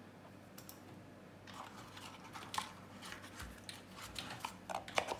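Light clicks and small scrapes of a Boker balisong butterfly knife and its small metal parts being handled, starting about a second and a half in and getting busier near the end.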